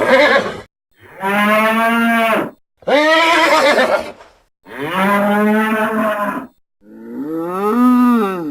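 Pachycephalosaurus sound effects: a series of long, pitched calls, each about a second and a half with short gaps between, like a large animal lowing. The last call rises and then falls in pitch.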